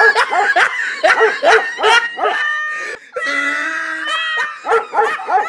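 Rapid, dog-like barking and yapping, about three barks a second, with one longer, drawn-out call about halfway through.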